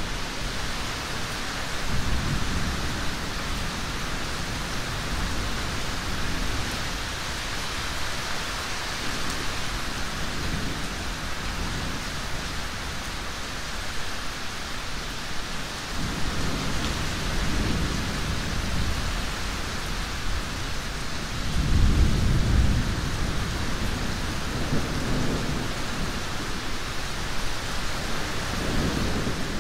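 Steady rain with thunder rumbling low several times, the loudest roll about three-quarters of the way through.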